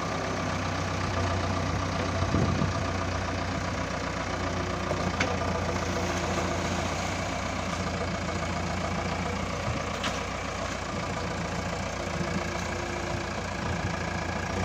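JCB 3DX backhoe loader's diesel engine running steadily at low, even revs as the machine moves through floodwater. Two brief clicks sound about five and ten seconds in.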